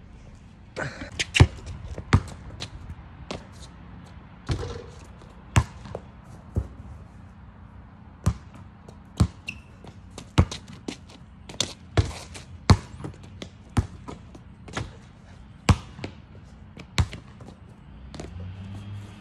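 A basketball banging on hard surfaces over and over, about twenty sharp hits spaced half a second to a second apart, as shots miss and the ball comes off the hoop and bounces on an asphalt driveway. A short excited voice sounds near the start.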